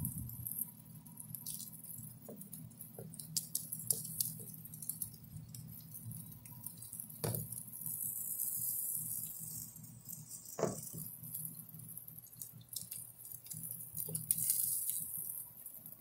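Barbecue-sauced ribs sizzling over glowing charcoal in an open barrel grill: a steady hiss with scattered crackles and ticks, two louder pops about seven and ten seconds in, and a low steady hum underneath.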